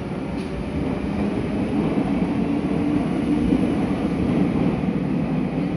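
Meitetsu 6500 series electric train pulling out of an underground platform: a steady rumble of wheels and traction motors with a low hum, growing slightly louder about two seconds in.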